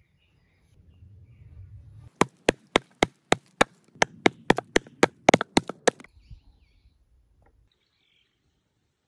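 Hand-forged bowl adze chopping into an upright block of wood: about fifteen quick strikes at roughly three or four a second, starting about two seconds in and stopping after about four seconds.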